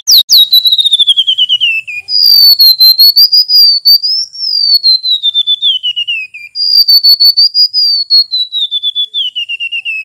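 Golden-bellied gerygone (remetuk laut) singing loudly: three phrases of quick, clear whistled notes, each phrase running steadily downward in pitch.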